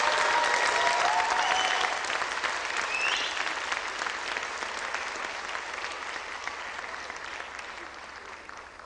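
Audience applauding, with a few whoops and whistles in the first few seconds. The clapping then gradually dies away.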